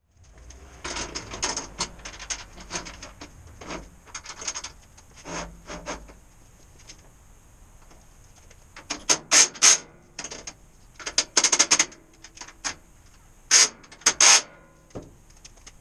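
Irregular short bursts of scraping, clicking and rattling from tools and parts being handled in a workshop. They come sparsely at first, then in louder clusters from about halfway, the loudest near the end.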